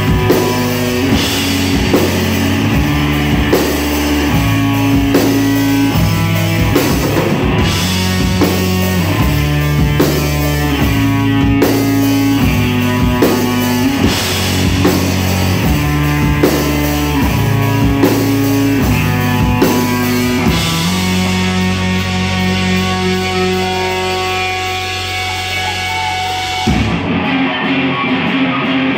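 Live rock band playing an instrumental passage on electric guitars and drum kit, with a moving low bass line under steady drum hits. About two-thirds of the way through the drums stop and held guitar notes ring on. Near the end the low end drops out, leaving a single guitar playing alone.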